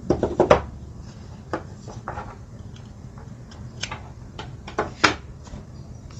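Handling noise of the LED pedal light modules and their magnetic charging cables: a quick cluster of clicks at the start, then scattered single clicks and light taps about every half-second to second.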